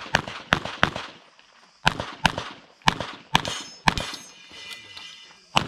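A pistol firing a string of shots: three quick shots, a short pause, then several more in pairs as the shooter moves between positions, with one more near the end. A metallic ringing lingers for about a second after the shots in the middle.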